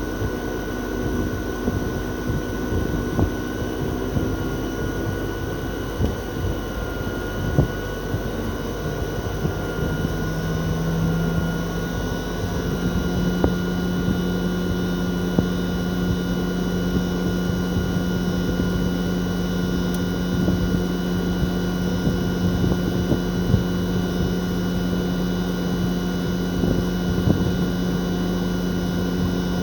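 Toshiba RAS-4069AV outdoor unit's twin-rotary compressor running during a defrost cycle, with the fan stopped. The steady hum climbs in pitch about ten seconds in and holds higher from about thirteen seconds on, with scattered light clicks.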